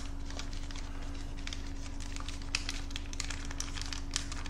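Crinkling and crackling of a small white wrapper handled between the fingers: an irregular scatter of light clicks.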